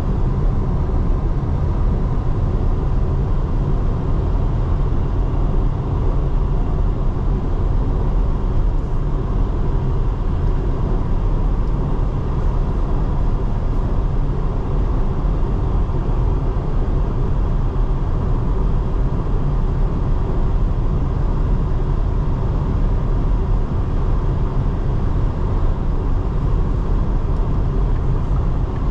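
2024 Porsche Cayenne under way: a steady, even rumble of road, tyre and engine noise, mostly low in pitch, with no rise or fall through the stretch.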